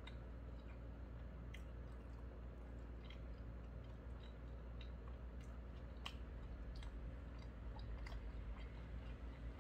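A man chewing a mouthful of food with his mouth closed, faint small wet clicks scattered throughout, over a low steady hum.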